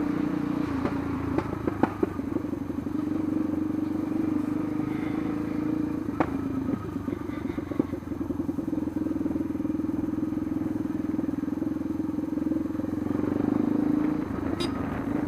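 Yamaha Lander 250's single-cylinder engine running steadily under way, with a few sharp clicks, the clearest about six seconds in.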